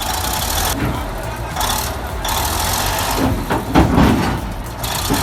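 Heavy diesel engine of earth-moving equipment running steadily, with hissing noise that comes and goes and a few louder bursts a little past the middle.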